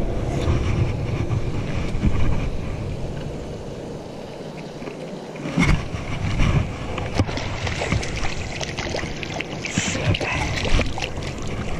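Wind rumbling on the microphone, with knocks and rustling as a trout is threaded onto a rope stringer. Near the end, the trout splashes at the water's surface on the stringer.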